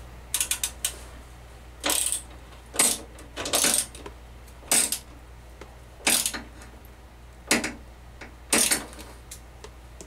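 Ratchet wrench clicking in about eight short runs, spaced roughly a second apart, as it works the mounting bolts of an evaporator fan motor.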